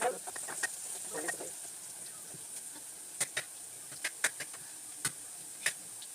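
Chopped onions frying in oil in a cooking pot, a steady sizzling hiss as they brown. About six sharp clicks or taps in the second half.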